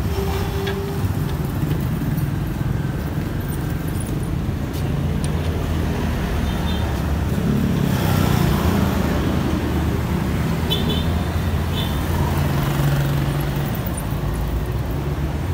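Motor traffic: a steady low rumble of vehicle engines running. Twice, a short high double chirp sounds over it.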